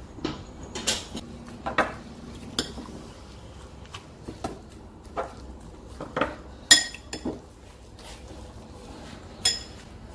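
Metal kitchen utensils knocking and clinking against dishes, about ten irregular knocks. A few of them ring on briefly, the loudest about two-thirds of the way through.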